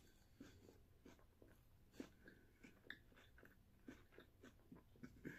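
Faint, irregular wet mouth clicks and smacks of a person chewing French fries with her mouth partly open.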